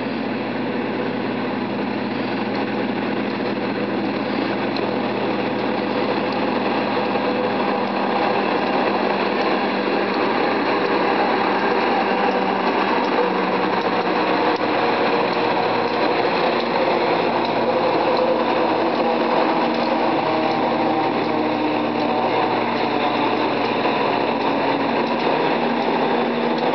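White Pass & Yukon Route No. 91 diesel locomotive running as it passes, a steady engine note that grows a little louder over the first several seconds and then holds.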